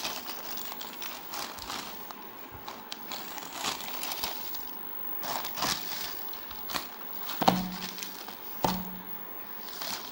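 Plastic courier mailer bag crinkling and rustling as it is opened by hand and a phone box is pulled out, with two sharper knocks in the last few seconds.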